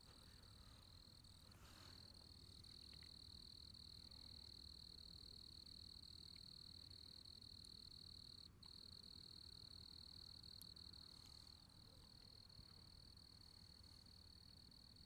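Crickets calling in a continuous high-pitched trill, faint and steady, breaking off for an instant about eight and a half seconds in, over a low background hum.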